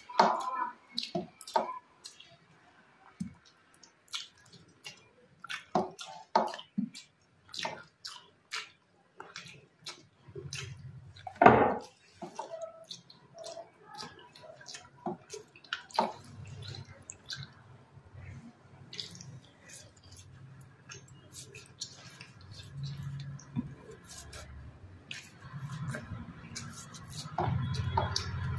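Close-miked eating sounds: a person chewing mouthfuls of rice and curry, with many wet smacks and clicks of the mouth. One much louder knock comes about eleven and a half seconds in.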